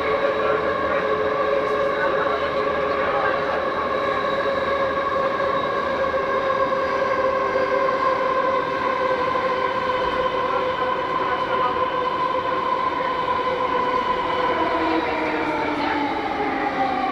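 Vagonmash S81 metro train heard from inside the car, running with the whine of its DK-117 traction motors and gearing as a chord of steady tones over rumble. The whine falls slowly in pitch and then more steeply near the end as the train slows.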